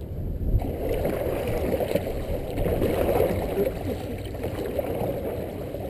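Dragon boat paddles splashing and churning through the water as the crew strokes hard, a steady rush of water that picks up about half a second in.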